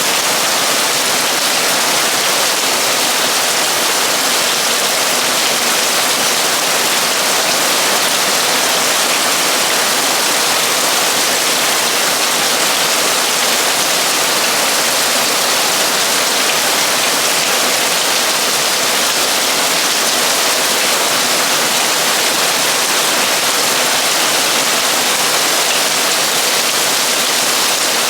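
Torrential rain drumming on a metal roof, a dense, steady hiss with no let-up.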